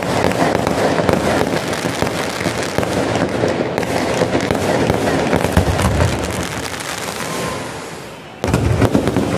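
Aerial fireworks display: a dense run of rapid crackling and popping bursts from the shells. The sound fades briefly near the end and then comes back abruptly at full loudness.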